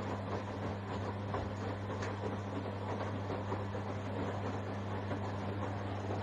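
Washing machine running: a steady low hum with a rough, even churning noise over it.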